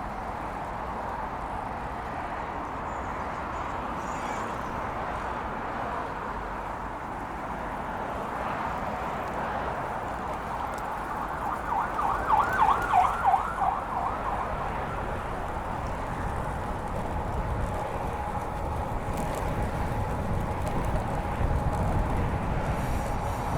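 A road bike rolling along a paved path, with steady tyre and wind noise that grows rumbly in the second half. About halfway through, a short rapid warbling tone pulses for a second or so.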